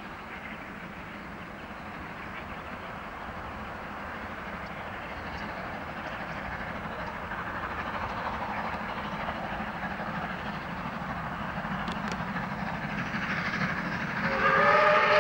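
South Australian Railways 520-class 4-8-4 steam locomotive working a train upgrade, its sound growing steadily louder as it draws nearer. Near the end its whistle starts, a steady chord of several notes.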